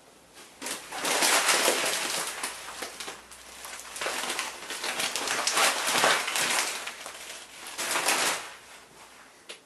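A plastic bag of malted grain being handled, the plastic rustling and the grain shifting inside it, in three bursts.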